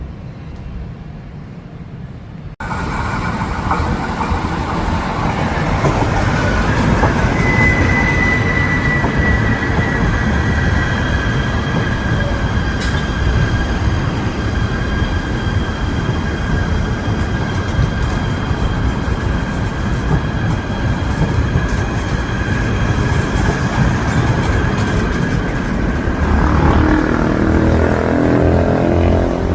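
Loud steady rumble of something moving, with high-pitched squealing tones held over it, starting abruptly a few seconds in. Near the end a lower pitched note joins, wavering up and down.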